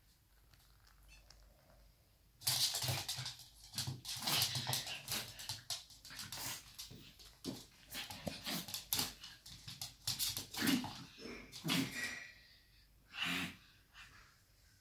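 Pekingese dog making rapid, irregular short huffs and grunts while nosing at a kitten, starting about two seconds in and dying away near the end.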